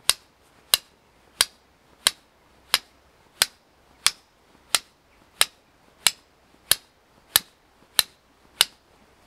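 Steel striker struck repeatedly against a piece of flint to throw sparks: about fourteen sharp, evenly spaced clicks, roughly three every two seconds.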